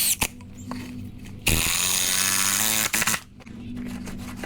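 A handheld power tool runs once for about a second and a half, its whine rising as it spins up and falling as it winds down, after a couple of knocks near the start. A faint steady low hum runs underneath.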